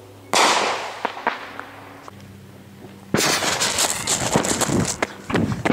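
Consumer fireworks: one sharp bang a third of a second in that dies away over about a second, a couple of small pops, then from about three seconds in a dense crackling of many rapid small pops.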